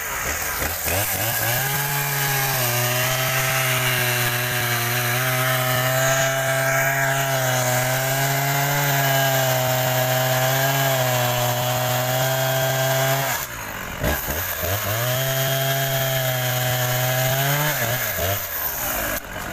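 Husqvarna two-stroke chainsaw at full throttle cutting into wood, held steady for about twelve seconds, dropping back briefly, then revving up for a second cut of a few seconds before easing off near the end.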